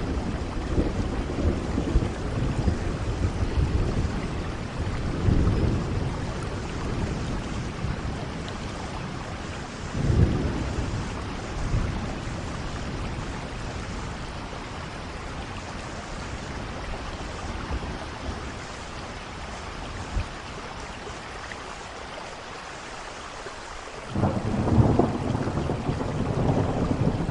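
Steady rain with rolling thunder: low rumbles through the first few seconds and again around ten seconds in, then a quieter stretch of rain, and a louder rumble of thunder breaks in suddenly near the end.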